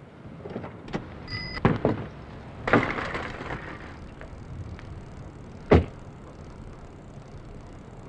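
A car door being worked as the driver climbs out: several small clicks, a brief electronic chime, the door swinging open with a rustle of movement, then one sharp thump, the loudest sound, a little over halfway through.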